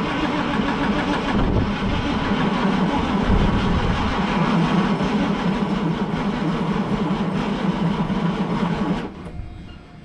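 Starter cranking the White GMC cabover truck's diesel engine steadily, stopping about nine seconds in; the engine does not fire, and the batteries are running down.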